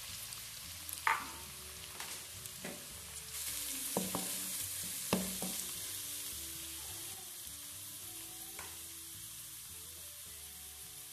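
Chopped radish seed pods (mongre) sizzling in hot oil in a kadhai, the sizzle growing louder about three seconds in. A spatula scrapes and knocks against the pan several times as they are stirred.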